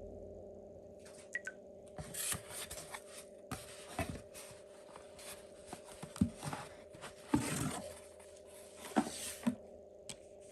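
Cardboard and plastic packaging being handled and opened by hand: irregular rustling and scraping with sharp clicks, over a steady low hum.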